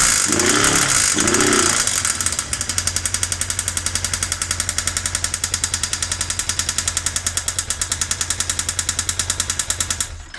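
Suzuki GS500 air-cooled parallel-twin engine given a couple of quick throttle blips, then settling to a steady run with a fast, regular knocking, the unexplained strange engine noise whose cause the owner is asking about. The engine cuts off suddenly near the end.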